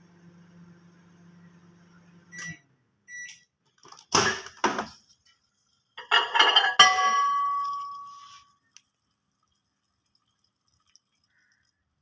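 A low steady hum cuts off about two and a half seconds in. Then come a few short clicks, two sharp knocks, and a ringing clatter with clear tones that dies away over a couple of seconds.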